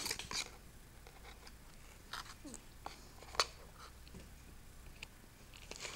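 Quiet room with scattered faint clicks, taps and rustles of small items and packaging being handled. The sharpest taps come at the very start and about three and a half seconds in.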